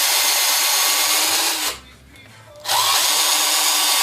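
Power tool spinning a typewriter's grooved rubber platen against a sanding block, a steady grinding whir of sandpaper on rubber. It winds down about a second and a half in, stops for about a second, then spins back up.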